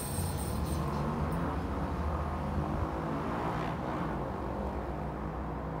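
Passenger train running away round a curve over the station tracks, a steady wheel rumble that swells briefly midway and then slowly fades. A thin, high metallic squeal stops about a second in.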